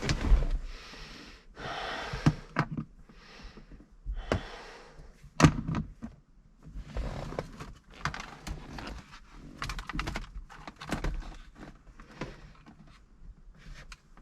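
Irregular clicks, knocks and rustling from hands working wiring and plastic gauge parts in a car's interior, with one sharp knock about five and a half seconds in.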